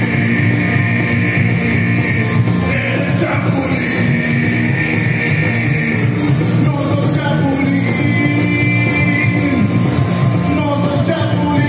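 Loud rock music with guitar and a singing voice, playing continuously.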